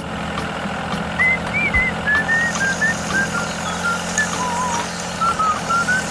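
A whistled melody of short wavering notes over a steady low hum.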